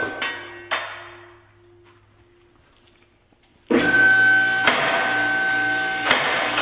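Two-post vehicle lift's electric hydraulic pump motor whining as it raises an SUV. It winds down in the first second or two, falls quiet, then starts again abruptly near the middle, with the lift's safety locks clicking about every second and a half.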